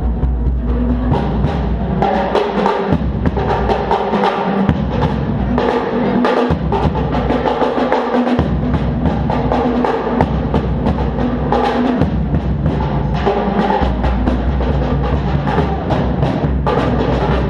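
Drum kit played continuously, with a dense run of drum and cymbal hits over a deep, sustained bass, recorded through a GoPro HERO3 Black's built-in microphone.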